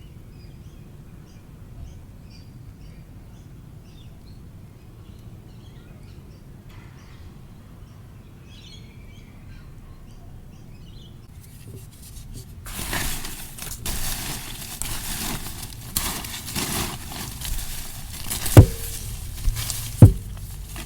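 The Zoom H4n field recorder's low electrical buzz, with faint scattered high ticks, for about twelve seconds. Then loud rustling and handling noise takes over, with two sharp knocks near the end.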